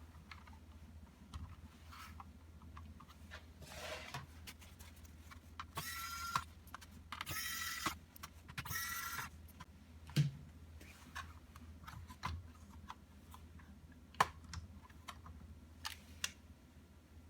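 Small clicks and taps of laptop parts and tools being handled, with three short squeaky scraping sounds in the middle, like plastic being pried or rubbed, over a steady low hum.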